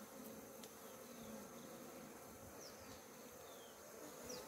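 A colony of honeybees buzzing faintly and steadily at an opened hive, the bees crowding a lifted comb frame.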